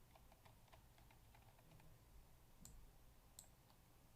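Faint clicking at a computer: a run of soft ticks in the first two seconds, then two sharper clicks in the second half, over a low room hum.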